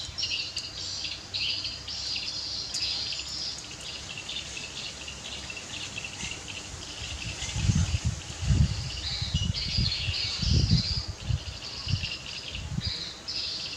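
An outdoor chorus of insects and birds chirping in repeated short bursts. From about halfway through, a run of dull low thumps comes in and is the loudest thing heard.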